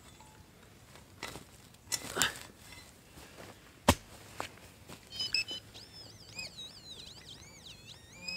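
Metal-detecting spade digging into turf and soil: a few scraping strokes, then a sharp knock about four seconds in. From about five seconds a high electronic warbling tone bends up and down to the end.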